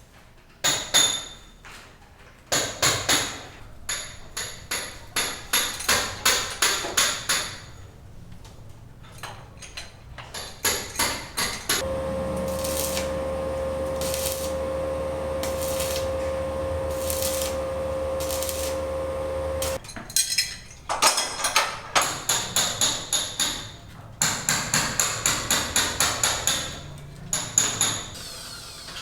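Hammer blows in quick runs of about three or four strikes a second, each with a sharp metallic ring, typical of construction work. In the middle the hammering gives way for about eight seconds to a steady machine hum with one held tone, then the hammering starts again.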